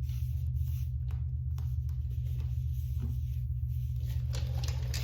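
Steel tyre-plug reamer being forced into a puncture in a motorcycle tyre: short scraping, rasping strokes of metal against rubber, with a denser stretch of scraping near the end. A steady low hum sits under it all.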